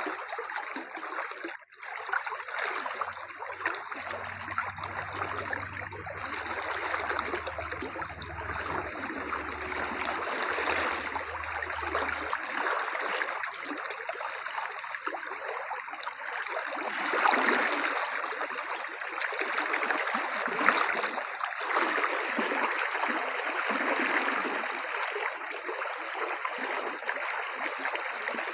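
Steady rush of running water, splashing and trickling.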